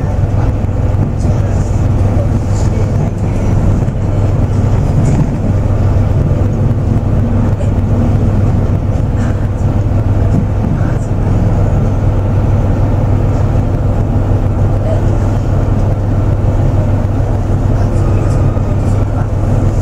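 Tosa Kuroshio Railway 9640 series diesel railcar running, heard from inside the car: a steady low engine drone mixed with wheel and rail running noise.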